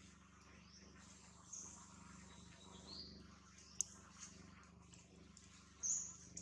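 A few faint, short high-pitched animal calls, the loudest near the end, with a single sharp click just past midway, over a low steady hum.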